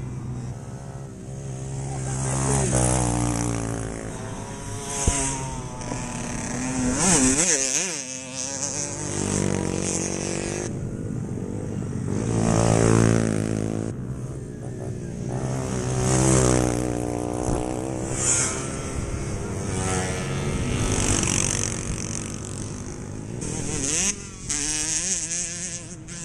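Small-engine race mopeds buzzing past one after another on a dirt track. Each engine note swells, rises and falls in pitch as it revs and goes by, several times over.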